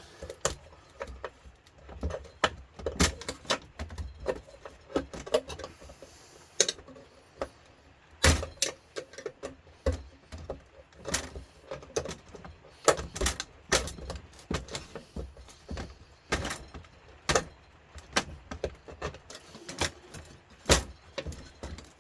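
Irregular metallic clicks, clinks and knocks of hand tools and loose metal parts being handled as a George Foreman electric grill is taken apart, with quieter scraping and handling noise between the sharper hits.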